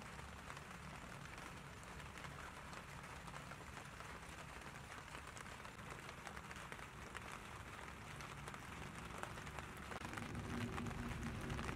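Pig legs sizzling faintly on a wire grill over charcoal, with scattered small crackles and pops. A low steady hum joins near the end.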